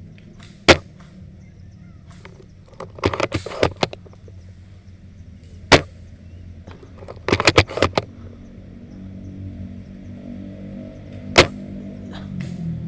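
Airsoft guns firing: three sharp single shots about five seconds apart and two short rapid bursts of shots, over a steady low hum.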